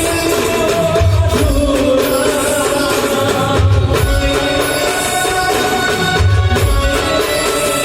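A band playing raas garba folk music: a held melodic line over hand percussion, with a heavy bass drum hit about every two and a half seconds.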